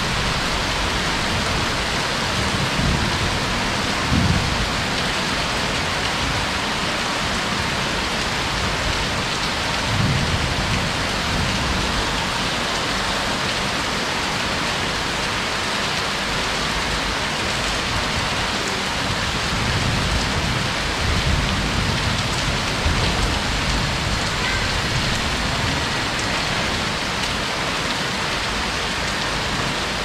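Heavy rain pouring steadily onto surfaces, with low rumbles of thunder swelling up several times.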